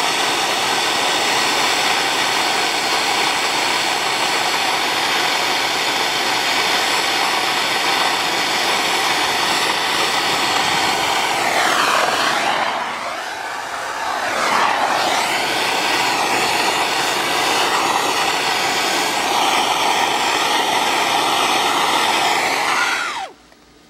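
Propane torch flame hissing steadily while it heats a copper sweat joint for soldering. About halfway through, the hiss dips and its tone sweeps for a couple of seconds as the flame is moved. It cuts off abruptly near the end as the torch is shut off.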